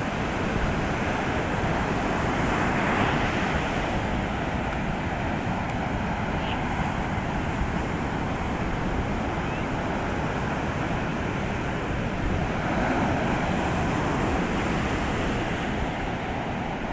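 Atlantic surf breaking on a sandy beach at high tide during spring tides: a steady rush of waves, with two louder breakers about 3 seconds and 13 seconds in.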